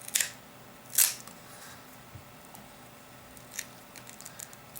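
Sharp plastic snaps and clicks as a cracked LCD is pried out of a Samsung Galaxy Y's frame with a pry tool: two loud snaps in the first second, then a few faint clicks near the end.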